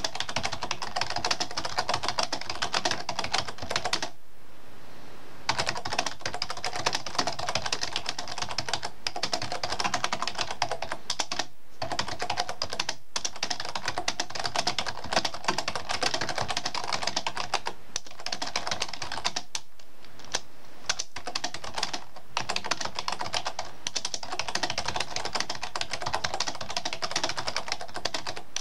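Steady, fast typing on a computer keyboard: a dense stream of key clicks, with a pause of about a second and a half around four seconds in and a few brief breaks later.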